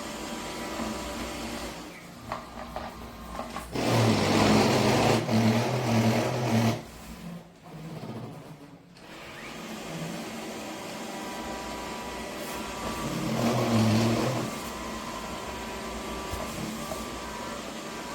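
A small electric motor appliance running with a hum and a rushing noise. It grows clearly louder twice, for about three seconds a few seconds in and again for about a second and a half later on.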